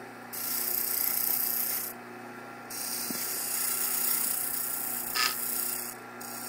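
Roughing gouge cutting a spinning maple blank on a wood lathe: a hissing shaving sound in three passes with short breaks between them, over the steady hum of the lathe. A short tick about five seconds in.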